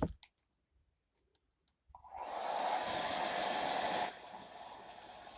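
LEBEN hair dryer switched on about two seconds in, blowing with a steady rush of air and a hum just under 1 kHz; a couple of seconds later it drops suddenly to a lower, quieter level and keeps running.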